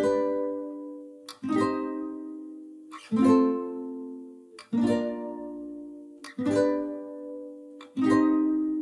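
Background music: slow chords strummed on a plucked string instrument, one about every second and a half, each left to ring out and fade before the next.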